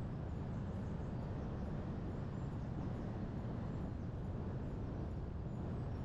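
Steady low rumble of wind and road noise from a car driving along.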